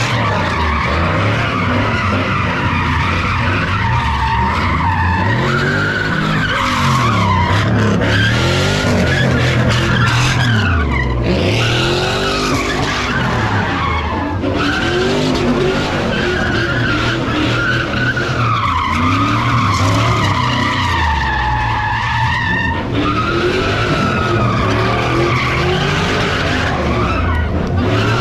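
Car doing donuts: the engine revs rise and fall again and again over continuous tyre squeal.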